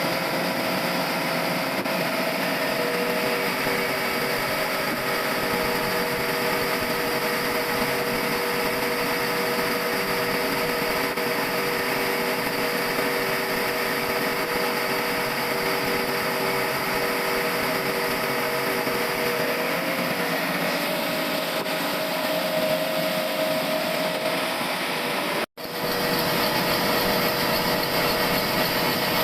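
An automatic sawmill's saw running steadily through a log, giving a continuous mechanical whine over the noise of the cut. The sound drops out for an instant near the end, then resumes.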